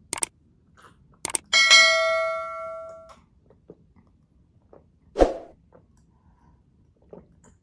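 A drinking glass clinked in a toast, ringing with a clear, bell-like tone that fades out over about a second and a half. A couple of small knocks come just before it.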